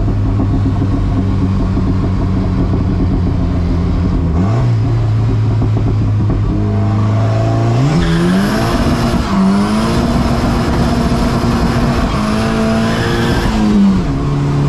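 Big-turbo Volvo wagon's engine heard from inside the cabin on the road: it runs at steady revs, steps up, then climbs sharply in pitch under acceleration from about eight seconds in. After a brief dip it holds high revs, and drops back near the end.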